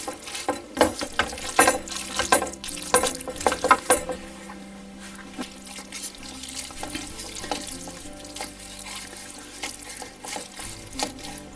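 Wooden spoon stirring and tossing sauced spaghetti in a metal pan, with quick clicks and scrapes against the pan through the first four seconds, then quieter, wetter sounds as the pasta is lifted.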